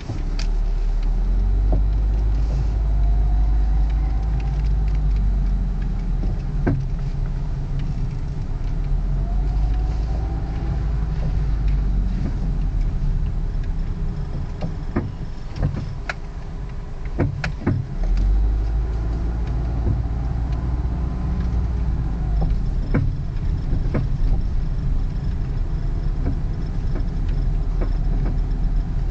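2001 Ford Focus in motion: steady low road and engine rumble with scattered sharp pops and knocks from the front suspension, several close together in the middle, which the owner takes for worn control arm bushings and ball joints. A faint squeak from the A/C blower motor comes and goes.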